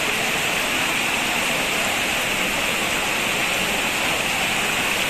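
Heavy rain pouring onto waterlogged ground, with water splashing onto a heap of broken bricks; a steady, even rush of water with no breaks.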